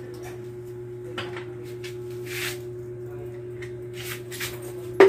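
Scattered light knocks and clicks from window-fitting work, with one sharp knock near the end, over a steady hum.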